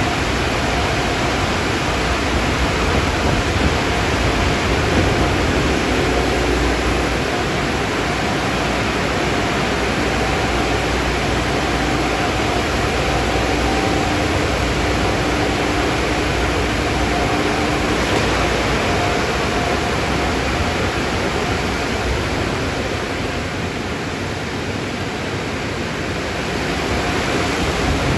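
Car wash machinery running: a steady rushing noise with a faint hum mixed in during the middle stretch.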